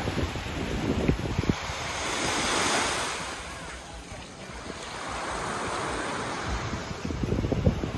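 Small sea waves washing up a sand beach, the hiss of the surf swelling twice, with wind buffeting the microphone at the start and again near the end.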